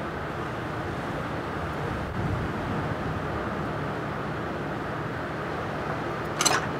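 Steady rumbling noise on a ship's deck at sea: wind, rushing water and ship machinery blended together, with a short voice near the end.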